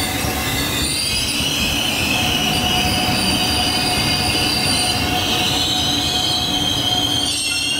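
Korail 311000-series Line 1 electric commuter train running slowly along the platform: a steady rumble from the cars, with high-pitched wheel squeal ringing on several steady tones over it.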